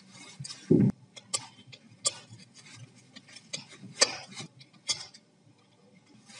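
Scattered sharp clicks and taps of a screwdriver and a circuit board against a soldering station's plastic housing as the board is screwed into place, with one duller knock just under a second in.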